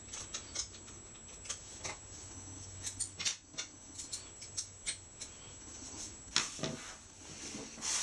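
Scattered small clicks and taps of a small screwdriver and fingers working the drive-bracket screws inside an opened 2012 MacBook Pro, over a faint steady low hum.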